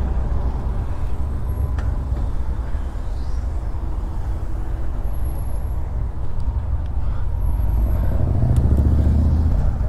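Steady low rumble of wind on the microphone and surrounding city traffic while riding a road bike along a street, growing louder near the end.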